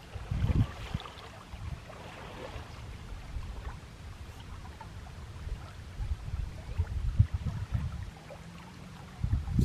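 Shallow river water running with a steady faint wash. Irregular low rumbling bursts come about half a second in, again around six to eight seconds in, and near the end.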